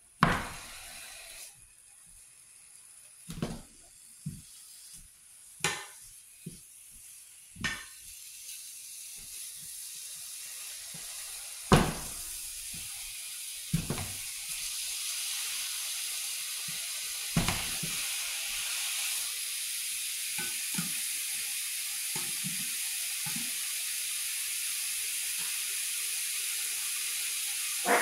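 Frozen ground beef beginning to sizzle in a nonstick frying pan as the pan heats, the sizzle growing over the first half and then steady. A spatula knocks against the pan several times, the loudest sounds.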